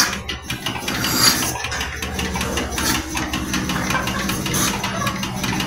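Mechanical milking machine running: a steady hum from the vacuum system with fast, regular ticking, and a short hiss about a second in.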